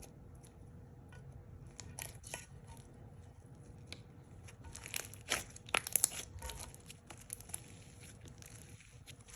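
Hands kneading and stretching slime, giving irregular small crackling clicks and pops, with a denser, louder cluster about five to six seconds in.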